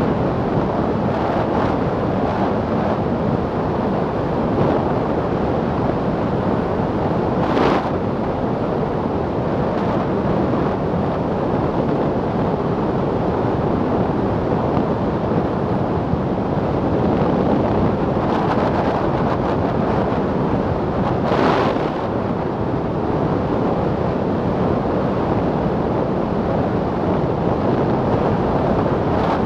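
Steady rush of wind over the microphone, with road noise, on a roofless Milan Mk4 velomobile rolling at about 73 km/h. Two brief louder hissing swells come about 8 seconds in and about 21 seconds in.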